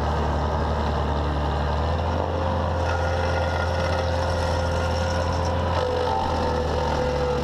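Vermeer SC1152 stump grinder running steadily at working speed, its engine drone carrying a steady whine from the spinning cutter wheel as the wheel is brought down over the stump.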